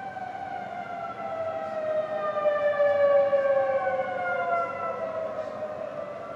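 Outdoor tornado warning sirens wailing for a tornado warning: one steady tone holds while a second tone sinks lower and comes back up. The sound swells to its loudest about halfway, then eases off.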